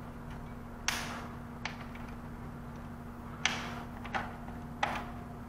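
Fan bracket of an HP ProLiant DL380p Gen8 server being unclipped and worked loose from the chassis by hand: a handful of sharp clicks and knocks, the loudest about a second in and again at about three and a half seconds.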